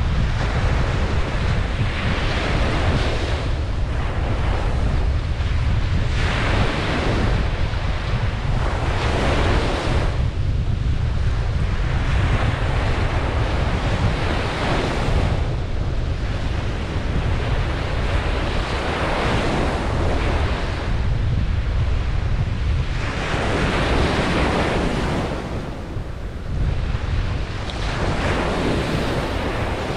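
Ocean surf breaking on a beach, waves washing in one after another in rising and falling surges of hiss every two to three seconds. A steady low rumble of wind on the microphone runs underneath.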